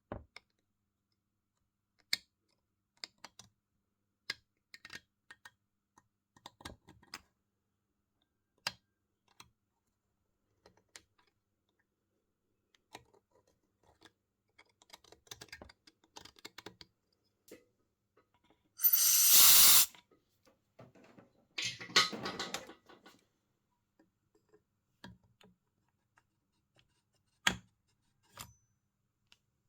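Scattered light clicks and knocks of tools and small parts being handled during engine work. About two-thirds of the way in there is a loud hiss lasting about a second, then a rougher noisy burst, and a sharp knock near the end.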